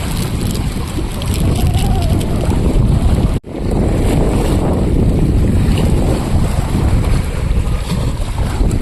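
Strong wind buffeting the microphone as a dense, loud low rumble, which cuts out for an instant about three and a half seconds in.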